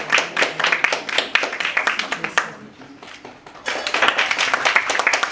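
Applause from a group of people clapping: many quick, overlapping claps that fall to a quieter patter about two and a half seconds in, then come back full strength about a second later.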